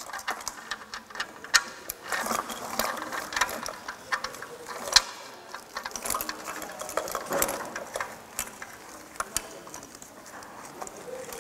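A ratchet wrench clicks and metal tools clink irregularly as an engine's oil pan drain plug is screwed in and tightened.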